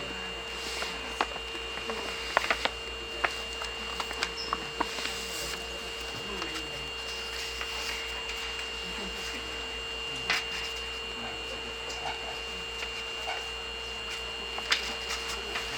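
A stationary 3000-series electric train's cabin, its onboard equipment giving a steady hum with two constant tones, a low one and a high one. Scattered small clicks and knocks sound throughout.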